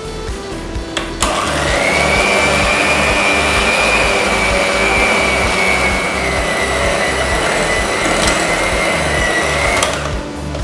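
Binatone electric hand mixer beating thick cake batter of butter, sugar, flour and eggs in a glass bowl, a steady motor whine that starts about a second in and stops shortly before the end.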